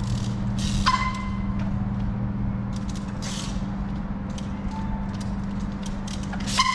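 A steady low mechanical hum runs throughout, with short sharp clicks and taps now and then as a trials bike hops on its back wheel along a brick wall ledge, and a brief squeal about a second in.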